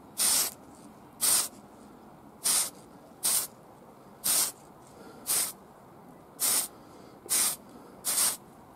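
Aerosol spray can of Tamiya TS-11 Maroon paint spraying a model fuel tank in short hissing bursts, about one a second, nine in all.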